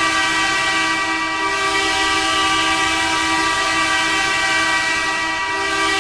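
Ice hockey arena goal horn sounding one long, steady blast, a deep horn rich in overtones, the signal of a home-team goal.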